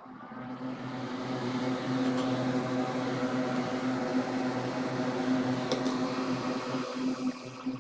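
Soldering fume extractor fan switched on: a rising whine as it spins up, building over the first couple of seconds into a steady whir with a low hum. The whir drops in level at the very end.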